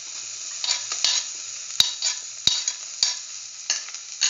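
Sliced onions going into hot oil in a stainless steel pan, sizzling, with about seven sharp taps and clicks as the pieces are tipped in from a plate.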